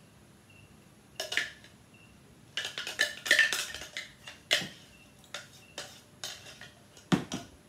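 A spoon scraping and tapping against a clear blender cup as mango puree is spooned into it. It comes as an irregular run of clicks and scrapes, densest about three seconds in, then single taps.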